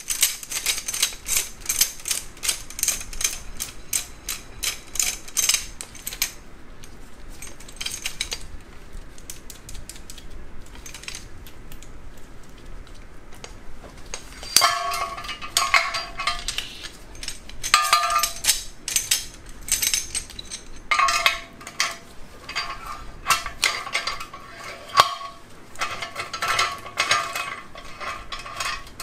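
Steel slide-hammer puller parts clicking and clinking as the puller jaws are set in a bearing and the hammer shaft is fitted: a rapid run of small metal clicks, then after a quieter stretch, louder metal-on-metal clinks with a brief ringing tone.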